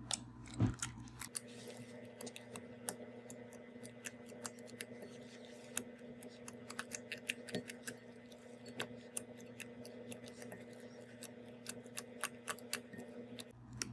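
Homemade glue-and-baking-soda slime being kneaded and poked by hand in a bowl, giving many irregular sticky clicks and pops. A steady low hum runs underneath.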